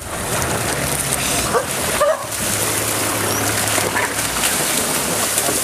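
Spotted hyenas and African wild dogs giving short, high yelps and squeals, a few scattered rising calls over a steady background noise.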